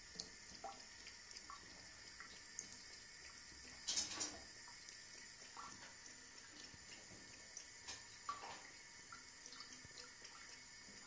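Thin stream of water trickling from a bidet tap into the ceramic basin, with scattered small drips and splashes. A brief louder noise about four seconds in.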